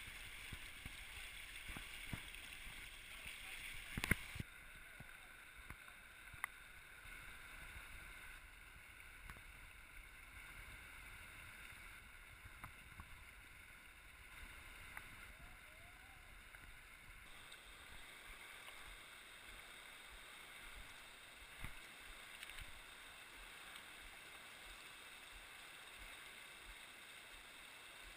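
Shallow river water rushing over rocks, heard faintly and muffled through a waterproof camera housing, with a few sharp knocks, the loudest about four seconds in.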